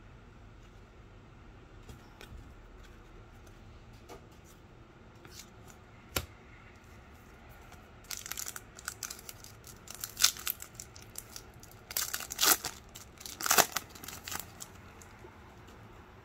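A foil trading-card pack wrapper being torn open and crinkled by hand: a run of loud ripping and crackling bursts starting about eight seconds in and dying away near the end. Before it, cards are handled quietly with a single sharp click about six seconds in.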